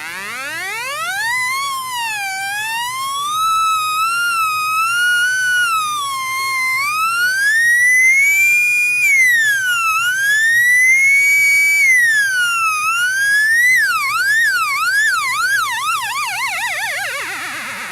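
Light-controlled 555-timer sound effects generator making an electronic tone that slides up from low, then wanders up and down in pitch like a siren. Late on, the second 555 timer's slow triangle-like wave wobbles the pitch quickly up and down, about two sweeps a second, before the tone drops away.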